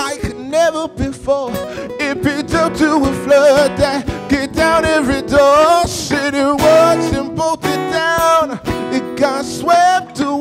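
Live acoustic band music: a man singing with sustained, wavering notes over two strummed acoustic guitars, with drums keeping a steady beat.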